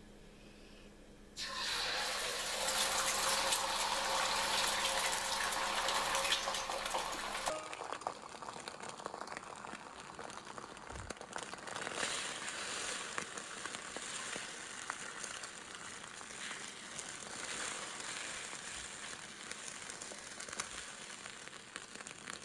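Beaten egg sizzling in a smoking-hot oiled wok. The sizzle starts suddenly about a second and a half in as the egg hits the oil, is loudest for the first several seconds, then goes on as a steadier sizzle with small crackles.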